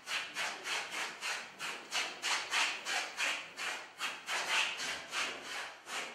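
Rhythmic rasping strokes, about three a second, like something being rubbed or sawn back and forth.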